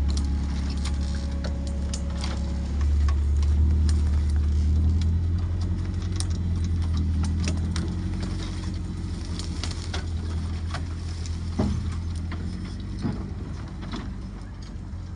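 Off-road vehicle's engine running with a steady low drone, getting louder about three seconds in and then slowly easing off. Scattered sharp clicks and one louder knock come from the vehicle working over rough ground.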